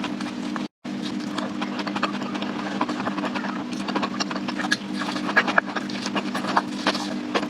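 Close-up chewing of roasted sweet potato skin: many irregular wet clicks and crackles over a steady low hum, cutting out completely for a moment just under a second in.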